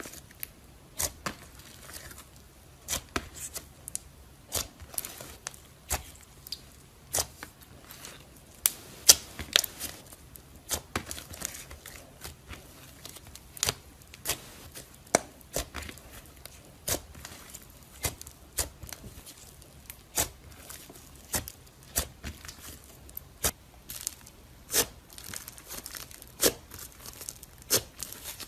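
Hands kneading, folding and stretching clear slime mixed with pink clay, giving irregular sharp sticky pops and clicks, one to three a second.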